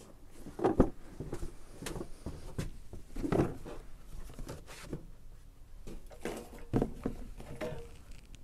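Handling sounds: a few dull knocks and rustles as a cardboard gift box of cutlery is handled and put aside. The loudest knock comes about a second in, with softer ones later.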